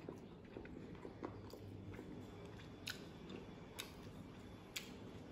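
Faint chewing of a mouthful of flaky puff-pastry sausage roll, with a few short, sharp crackles of the pastry, roughly once a second in the second half.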